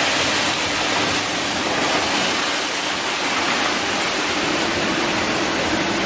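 Industrial bubble washing machine running: a steady rush of water from its spray nozzles and the air-bubbled tank churning.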